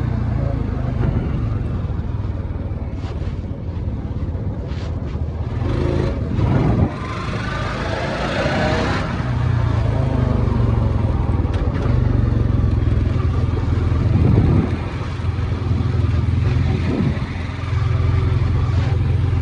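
ATV engine running steadily under load through mud, revving up briefly about six seconds in, again around fourteen seconds and near the end.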